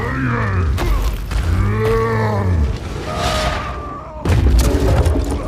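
Film soundtrack of a fiery destruction scene: deep booms and thuds, two deep drawn-out sounds that rise and then fall in pitch, and a loud hit about four seconds in.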